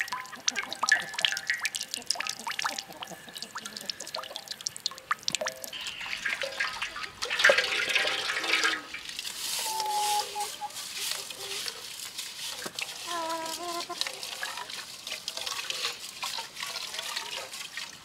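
Water splashing and trickling, with many light clicks and knocks, loudest about seven to nine seconds in.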